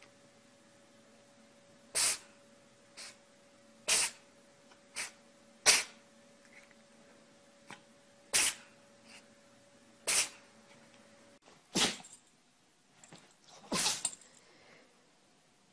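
Animals sneezing over and over: about eight short, sharp sneezes one to two seconds apart, with a few smaller ones between.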